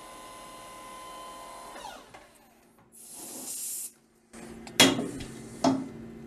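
Lathe running during micro drilling: a steady whine of several tones, which falls in pitch and fades about two seconds in. Then a short hiss, and after a brief gap a lower steady hum with two sharp knocks.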